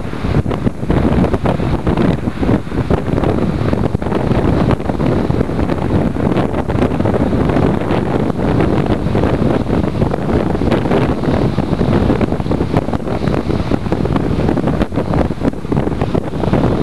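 Gusty wind buffeting the microphone, loud and continuous, with sea surf beneath it.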